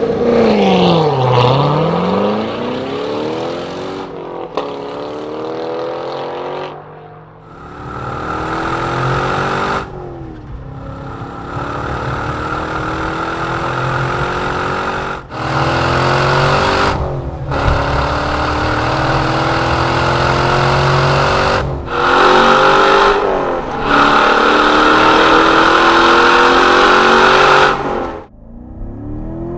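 Chevrolet Corvette C7's 6.2-litre LT1 V8 through a Borla ATAK exhaust, driven hard on track. Its pitch climbs again and again and drops sharply at each upshift. Revs dip and climb again about a second in, and the engine note cuts off near the end.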